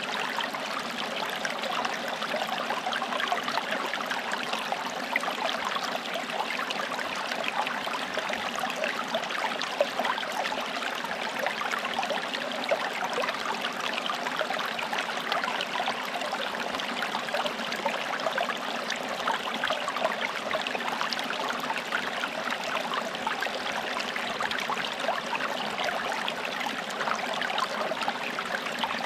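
Forest stream flowing steadily over rocks: continuous babbling and trickling water with small splashes throughout.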